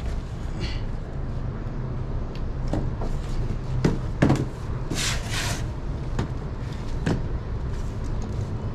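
A cardboard parcel handled and set down on a plastic table: a few knocks about four seconds in, a brief rustling scrape around five seconds, and another knock about seven seconds in, over a steady low rumble.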